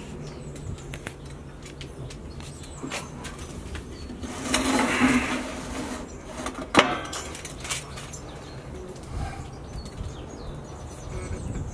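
Scattered clicks and knocks with a brief rustle about halfway through, from a small furry animal moving about a glass-floored enclosure, and one sharp knock shortly after.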